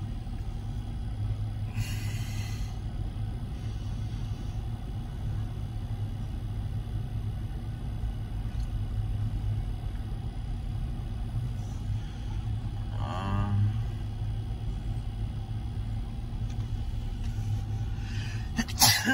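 Steady low rumble of a Union Pacific autorack freight train rolling past a grade crossing, heard from inside a car's cabin. A sharp knock comes at the very end.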